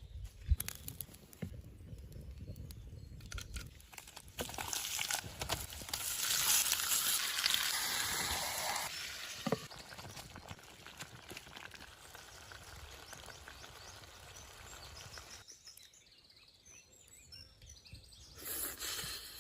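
Outdoor cooking sounds: a few knocks and handling clicks, then a steady hiss of pouring or sizzling for about five seconds, with birds chirping faintly later on.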